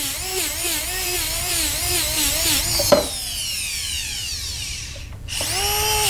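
Dental lab handpiece spinning a Robinson bristle brush with polishing compound against a silver-soldered wire joint, its whine wavering in pitch as the brush is pressed on the work. About three seconds in it stops and winds down, then starts up again and runs steadily near the end.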